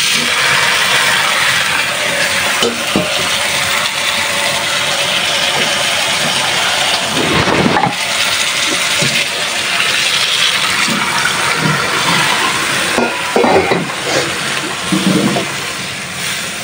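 Water poured into a hot pan of fried aair catfish and spiced onion masala, sizzling and hissing loudly, with a few clatters of the spatula against the pan around the middle and near the end.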